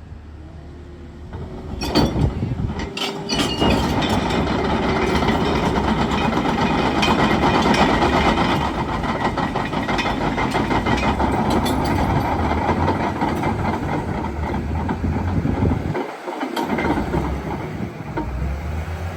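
Komatsu D61PXi-24 bulldozer running and moving, its steel tracks clattering and clanking over the diesel engine. The noise comes up about two seconds in, with a few sharp knocks near the start.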